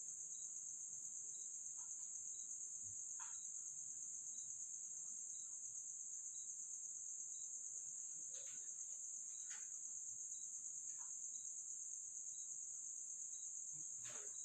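Crickets trilling steadily in a faint, high-pitched chorus, with a separate short chirp repeating about twice a second. A few soft clicks and taps stand out, the clearest near the end.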